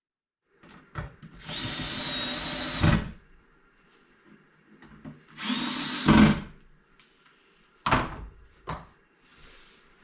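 Cordless power drill driving screws in two runs, the first about a second and a half long and the second about one second, each with a steady motor whine and ending in a louder hit as the screw seats. A few sharp knocks follow near the end.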